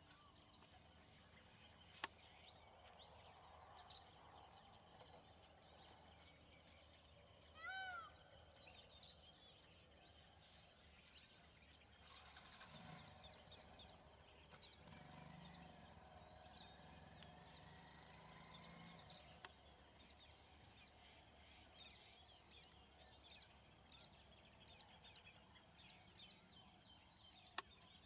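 Near silence: faint outdoor ambience with a steady high insect whine and scattered small bird chirps. One louder bird call with a rising-then-falling pitch comes about 8 s in. A faint low hum runs for several seconds midway, and two sharp clicks are heard, one early and one near the end.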